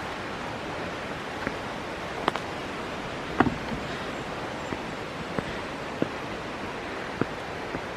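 Steady rushing of a mountain creek, with a few light, scattered knocks and clicks as hikers cross it on a log.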